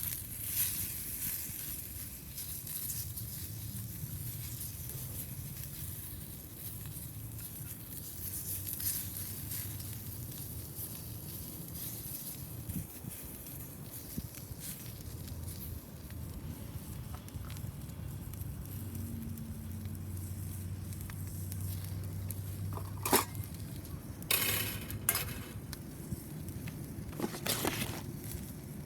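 Food sizzling in a pan over a wood fire in a homemade tower-type fire pit, with a steady hiss and light crackling. A few sharp clicks come near the end.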